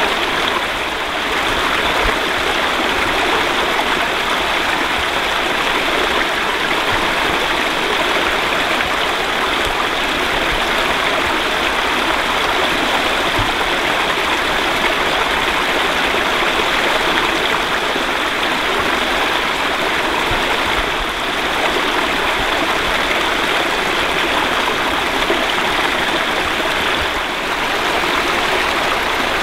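Small rocky stream running in little cascades over stones: a steady rush of splashing, trickling water.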